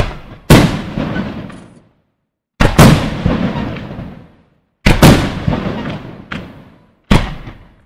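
Aerial firework shells bursting overhead: four loud bangs about two seconds apart, each followed by a long rolling echo that dies away.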